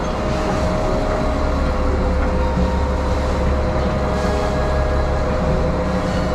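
Fishing boat's engine running steadily: a low drone with a steady whine over it and a wash of noise.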